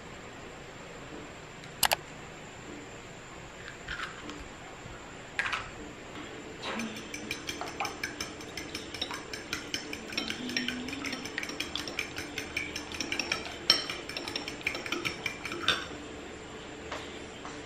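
A metal spoon beating raw eggs in a ceramic bowl: rapid clinks against the bowl for about nine seconds, starting about a third of the way in. A few single knocks come before it.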